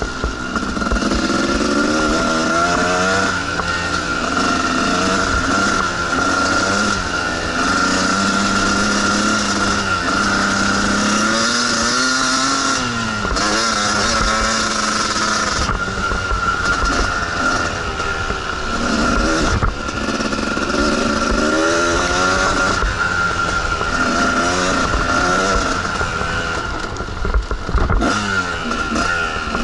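Two-stroke dirt bike engine being ridden on a trail. Its pitch rises and falls as the throttle opens and closes, with a few deeper dips where it drops low and climbs again.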